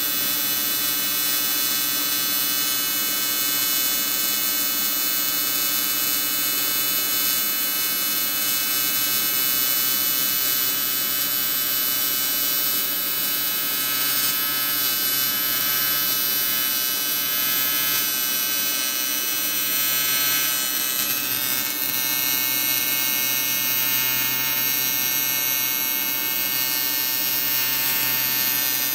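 AC TIG welding arc on cast aluminum: a steady buzz with a hiss over it, from an Everlast 325 EXT welder, as a drain bung is welded into an aluminum oil pan.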